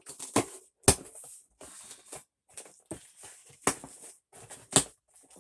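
A cardboard box being opened and unpacked by hand: rustling and crinkling of packaging, broken by a few sharp clicks and knocks, the loudest about a second in and near the end.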